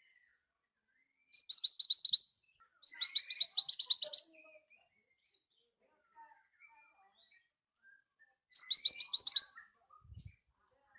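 Scarlet minivet singing: three quick bursts of rapidly repeated, high, sweeping notes, about seven to ten notes each. There is a pause of several seconds before the last burst near the end.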